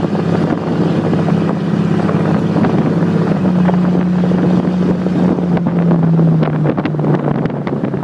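Jeep XJ Cherokee's exhaust with no catalytic converter and no muffler, running loud with a steady drone that steps down in pitch a few times. Wind noise on the microphone.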